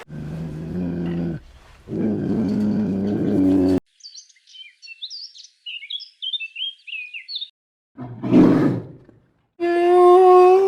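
A run of separate animal calls: two low, drawn-out pitched calls, then about three seconds of small-bird chirping, then a short rough roar, and finally a higher, held call near the end.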